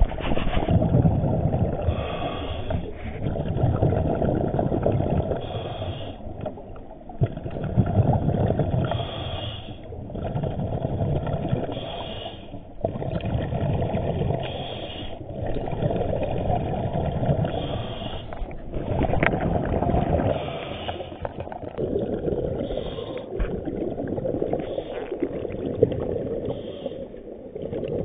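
A scuba diver breathing through the regulator underwater. A short hiss on each inhale alternates with a rumbling gush of exhaled bubbles, in a steady cycle about every three seconds.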